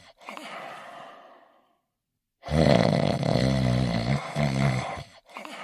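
Cartoon character snoring in a steady cycle. A quieter breathy hiss fades out, there is a short pause, and a loud pitched snore starts about two and a half seconds in, broken twice. The hiss begins again near the end.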